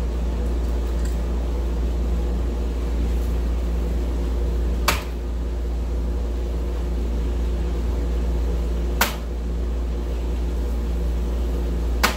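Three soft-tip darts striking an electronic dartboard, three sharp clacks a few seconds apart, over a steady low hum.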